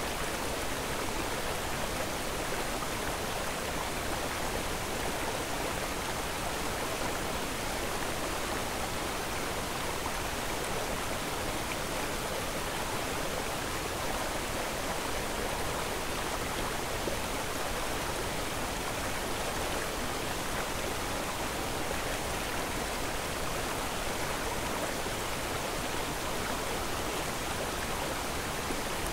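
A steady, unchanging rushing noise that keeps the same level throughout, with no distinct events.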